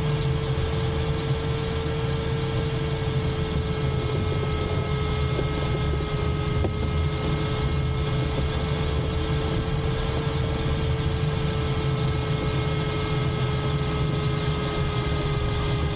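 Steady airflow noise in a glider cockpit in flight, a constant low rumble and hiss, with a thin steady electronic tone that wavers slightly in pitch.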